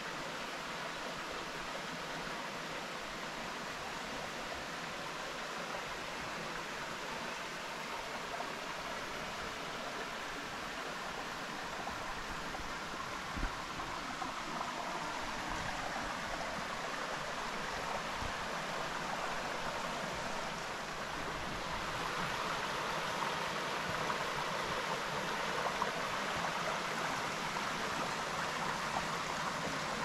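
Rainforest creek water flowing in a steady rush that grows louder about two-thirds of the way through, with a single soft thump near the middle.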